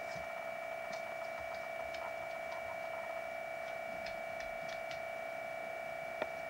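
A steady high-pitched electronic hum on two constant tones, with faint scattered ticks over it and one sharper click about six seconds in.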